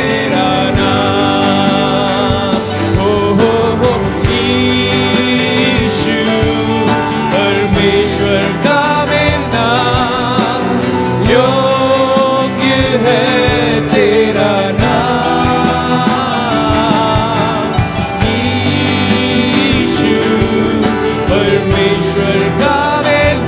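A worship band playing a song: electric bass, acoustic guitar and keyboard, with a voice singing over them.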